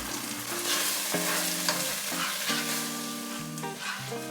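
Onion-tomato masala sizzling and frying in a pan while it is stirred, with scattered clicks of the spoon against the pan. Soft background music notes come in about a second in.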